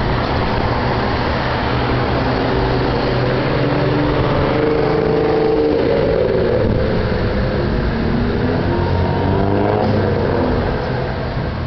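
Cars driving past on a multi-lane road, steady traffic noise, with an engine's pitch rising and falling as a car accelerates and shifts about midway.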